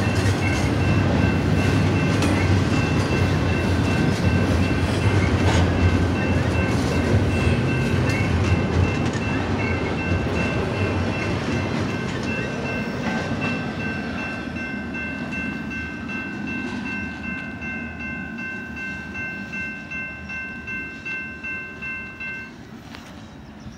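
BNSF intermodal freight train's double-stack container cars rolling past, wheels rumbling and clacking on the rails and fading as the last cars go by. A steady high-pitched ringing of several tones runs over it and stops near the end.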